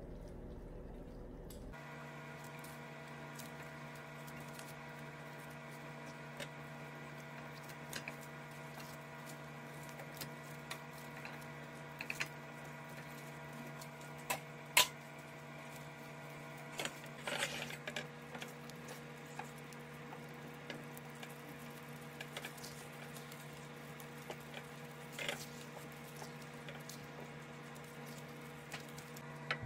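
Chicken wings being laid one by one with silicone-tipped tongs into a pan of simmering sauce and then stirred with a spatula: scattered light clicks, taps and wet squishes over a steady hum that starts about two seconds in.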